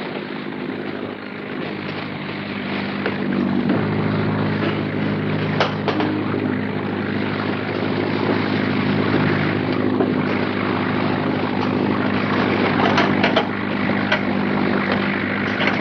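Boat engine droning steadily over a hiss, its note shifting about four seconds in, with a few short clatters.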